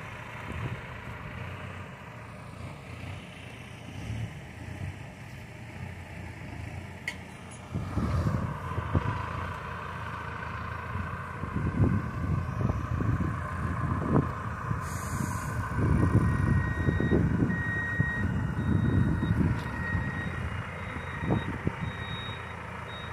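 Farm tractor's diesel engine running among sugarcane trailers, getting louder about eight seconds in. A reversing alarm beeps intermittently in the second half.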